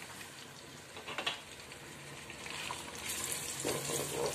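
Sliced onions sizzling in hot oil in a pot, with a couple of light knocks about a second in. The sizzle grows louder near the end as a wooden spatula stirs them.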